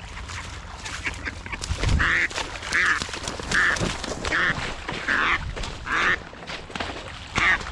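Live decoy mallard hen quacking in a steady series of short, evenly spaced quacks, about one every three quarters of a second, starting about two seconds in.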